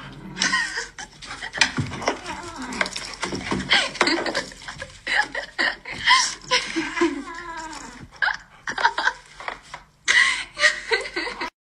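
Human laughter in many short repeated bursts, with a brief lull about ten seconds in.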